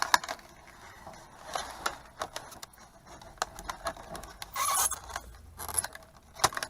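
Box knife cutting open a sealed blister-carded action figure package: intermittent scraping of the blade through plastic and cardboard, with scattered sharp clicks, the loudest scrape a little over halfway through.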